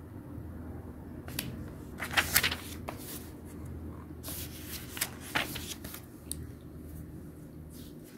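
Paper rustling in several short bursts, pages being handled and turned, the busiest stretches about two seconds in and again around four to five seconds in.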